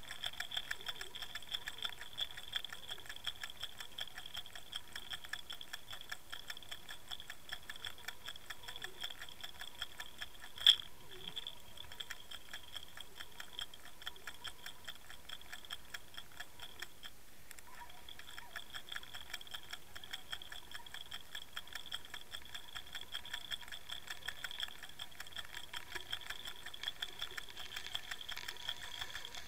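Fast, even ticking with a steady high whine, picked up through an underwater camera on the fishing line as a jointed swimbait is retrieved. One sharp click comes a little after ten seconds in, and the ticking drops away briefly around seventeen seconds before resuming.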